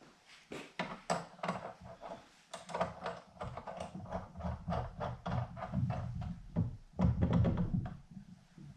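Irregular knocks, clicks and clatter of drill press parts being handled and fitted by hand, likely the feed-handle knobs going on. The knocks grow busier, over a low rumble, from about three seconds in until shortly before the end.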